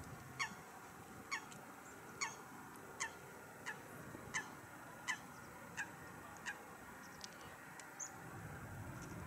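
A bird calling over and over, about eleven short downward-sliding calls each a little under a second apart. A faint low rumble from the approaching Airbus A320's engines rises near the end.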